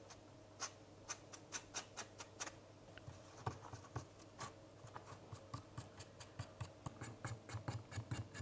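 A paintbrush dabbing paint onto a 3D-printed plastic part, heard as a faint, irregular run of quick light ticks, several a second. From about three seconds in they come thicker, with a duller knock under them.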